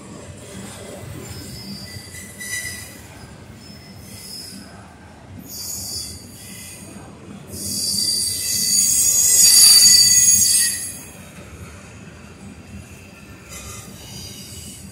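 Double-stack intermodal freight train rolling past with a steady rumble, its wheels squealing on the rail in high-pitched bursts. The longest and loudest squeal comes from about 7.5 to 11 seconds in.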